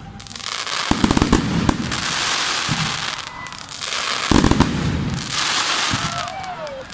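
Fireworks display: shells bursting in quick clusters of bangs about a second in and again just after four seconds, with crackling between them and short whistling glides near the end.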